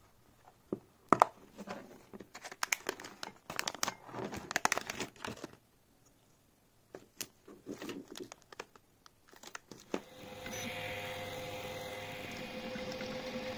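Plastic packaging crinkling, with sharp clicks as the circuit board and a clear plastic case are handled. About ten seconds in this gives way to the steady whir of a 3D printer's fans and steppers running while it prints, with a constant hum.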